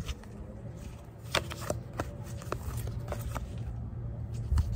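Tarot cards being handled and moved from front to back of the deck, giving a few scattered soft clicks and rustles of card stock, over a steady low background rumble.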